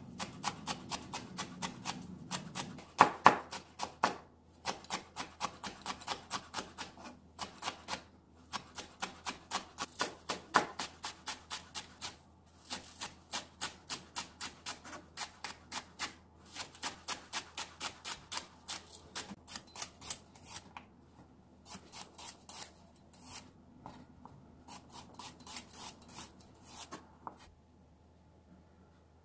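Chef's knife chopping green chili peppers and green onion on a wooden cutting board: quick, even strikes of the blade on the wood, about three or four a second, in runs with short pauses, with a couple of harder knocks about three seconds in. The chopping stops near the end.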